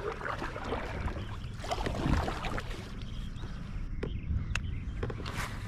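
Kayak paddle strokes splashing in the water, over a steady low rumble of wind on the microphone, with a few sharp clicks near the end.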